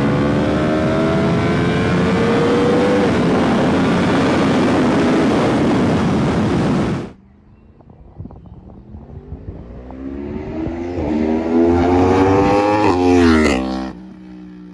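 Yamaha R1's 1000cc cross-plane-crank inline-four with a decat link pipe and Akrapovic silencer, accelerating hard under heavy wind noise. About seven seconds in, the sound cuts to the bike passing by: its engine note climbs steadily as it approaches, drops sharply as it goes past near the end, and fades.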